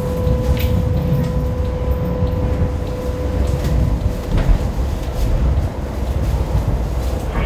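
Kawasaki light-rail car running along the track, heard from inside the car: a steady low rumble from the wheels and running gear, a steady whine that fades slightly partway through, and a few faint clicks.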